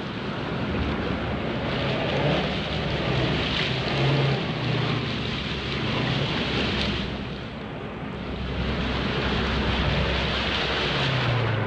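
Motor vehicle engine revving, its pitch rising and falling several times, over a steady rush of noise.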